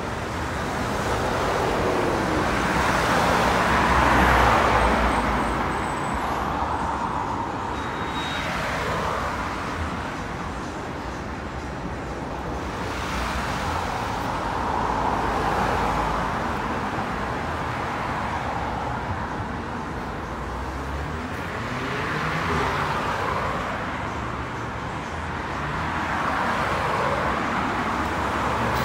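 Road traffic passing close by: cars and a van go past one after another, each one's tyre and engine noise swelling and fading over a few seconds above a steady traffic hiss.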